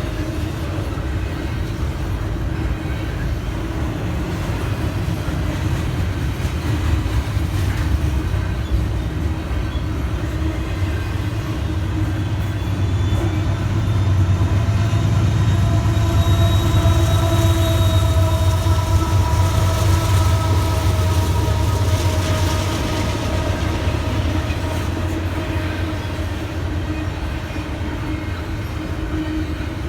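Norfolk Southern intermodal freight train rolling past: a steady rumble of wheels on rail that swells through the middle, where a few sustained whining tones rise over it and then fade.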